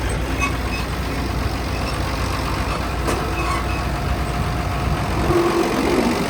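Farm tractor engine running steadily, with a single click about three seconds in.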